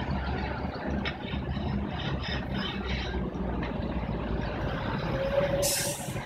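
Street traffic: a heavy vehicle's engine running steadily with a low rumble. Near the end comes a short steady tone with a brief burst of hiss.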